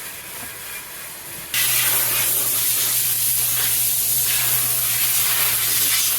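A power tool spinning a nylon-bristle brush against burnt white cedar to scrub off charred splinters: a steady, loud hiss over a low motor hum, starting suddenly about a second and a half in.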